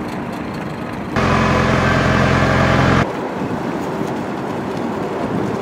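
A boat's outboard motor running at a steady speed for about two seconds, cutting in and out abruptly, over steady background noise.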